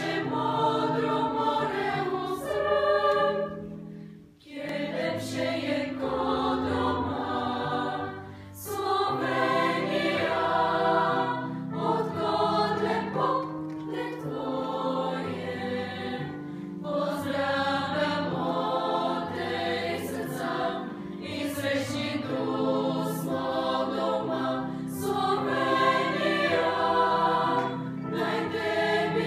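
Girls' choir singing a song in several voice parts, with short breaths between phrases about four and eight seconds in.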